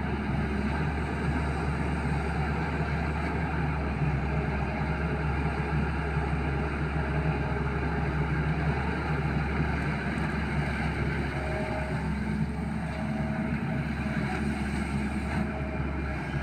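Excavator's diesel engine running steadily while it works, a constant low drone with no breaks.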